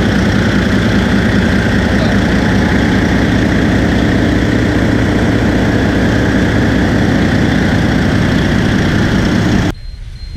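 Large marine diesel engine idling loudly and steadily in a boat's engine room. The sound cuts off abruptly near the end.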